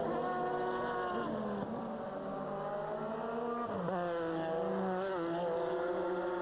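GT race car engines at high revs on track, held steady with the pitch sliding slowly. About four seconds in the pitch drops sharply and climbs again.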